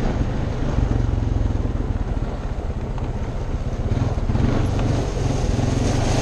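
Honda ATV engine running steadily under way, with its tyres rolling over gravel; the engine swells a little about four seconds in.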